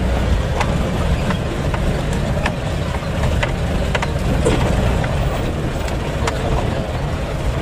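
Isuzu Elf microbus driving, heard from inside the cabin: a steady low engine and road drone with scattered short rattles and knocks from the body.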